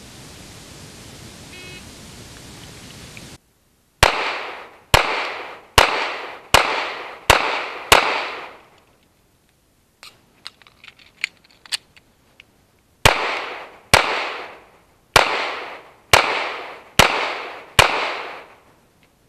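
Smith & Wesson SW99 pistol in .40 S&W firing two strings of six shots, each shot with a short echoing tail. Between the strings, about ten seconds in, come a couple of seconds of small metallic clicks from the mandatory magazine reload.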